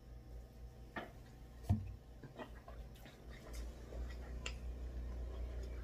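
Close-up eating sounds: finger licking and mouth noises with scattered small clicks, and one dull knock a little under two seconds in, over a low steady hum.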